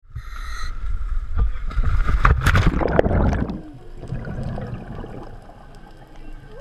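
Scuba diver's regulator breathing as heard by an underwater camera: a loud rush of exhaled bubbles gurgling and crackling for about three seconds, then dying down to quieter bubbling and water noise.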